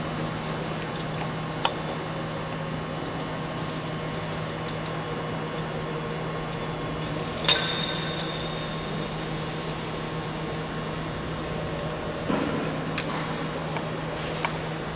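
Steady low machine hum with a few sharp metallic clinks, the loudest about halfway through, ringing briefly.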